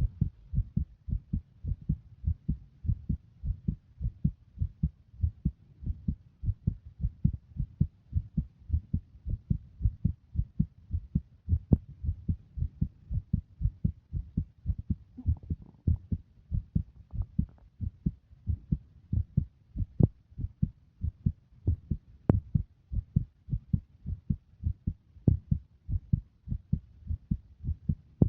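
Heartbeat: a steady, even rhythm of short, low thumps.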